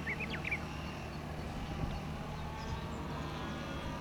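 Faint steady hum of a radio-controlled aerobatic model plane's motor in the distance, its pitch slowly rising over the second half. A few short bird chirps come in the first half-second.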